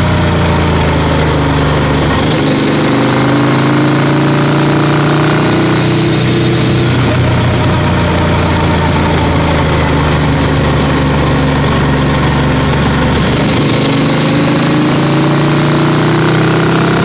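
Royal Enfield Interceptor 650's parallel-twin engine running steadily at low speed, its pitch drifting gently up and down.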